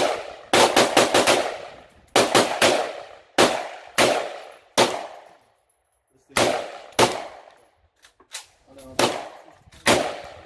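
AR-15 semi-automatic rifle firing about twenty shots. A quick string of about five comes first, then shots in pairs and singles with short pauses between them, each crack trailing off in a brief echo.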